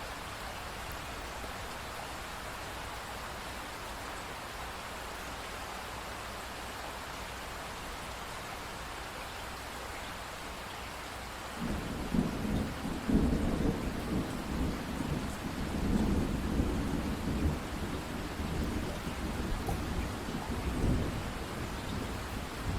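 Steady rain falling. About halfway through, a long low rumble of thunder sets in and rolls on, swelling and easing several times.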